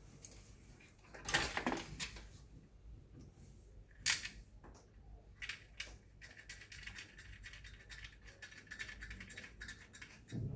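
Small clicks and handling noises, with a sharp click about four seconds in. From about six seconds a steady high hiss with fine rapid ticking sets in.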